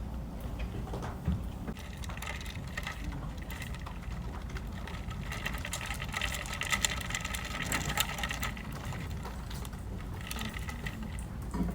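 Rapid mechanical clicking with a faint whir from office equipment, busiest in the middle, over a steady low hum.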